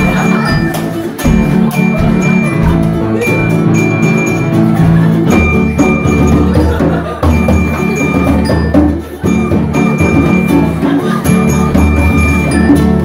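Upright piano and ukulele playing a tune together, with a hand drum; a deeper bass line comes in about five seconds in.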